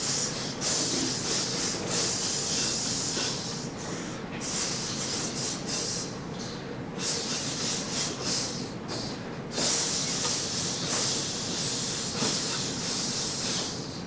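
A concert band sizzling their parts: many players hissing 'tss' through their teeth in the rhythm of the music instead of playing notes. It is a rehearsal exercise for rhythm and articulation, and the hiss breaks off briefly a few times.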